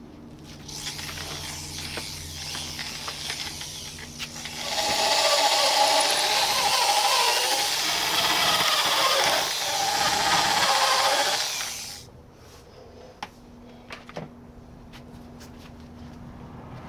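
A power tool working on wood. It runs more quietly for a few seconds, then loudly under load for about seven seconds with its pitch wavering, and cuts off about twelve seconds in.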